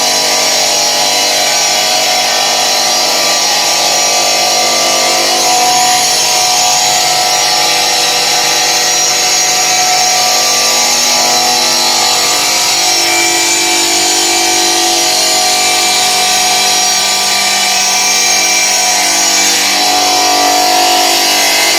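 Granite-cutting machine's saw running, a loud, steady, high-pitched machine noise.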